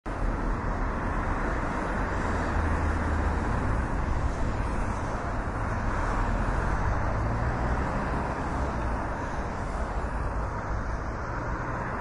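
City road traffic: a steady, continuous hum of many vehicles, strongest in the low end, with no single car standing out.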